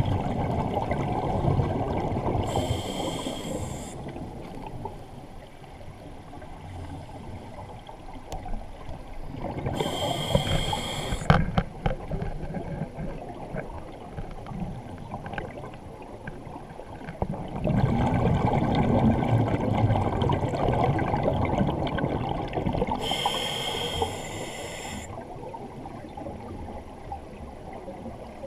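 A scuba diver breathing through a regulator underwater: three short hissing inhalations through the demand valve, each with a faint whistle, and long bubbling rumbles of exhaled air, with quieter pauses between breaths.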